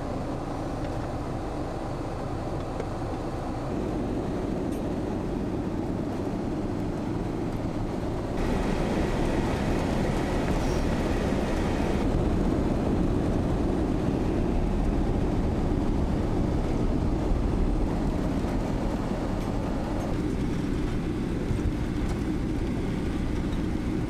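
Van engine and tyre noise heard from inside the cab while driving on snow-covered roads: a steady low drone that shifts abruptly a few times.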